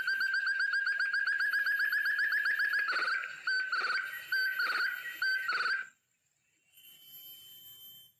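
Forest partridge (puyuh rimba) calling: a fast, even run of about ten high whistled notes a second that breaks into slower, spaced notes and stops about six seconds in. A faint, thin whistle follows near the end.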